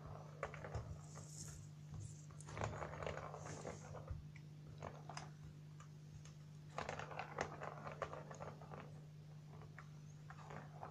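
Faint plastic clicking and rattling in two bursts, about two and a half seconds in and again near seven seconds, as Persian kittens bat at a circular ball-track cat toy, over a steady low hum.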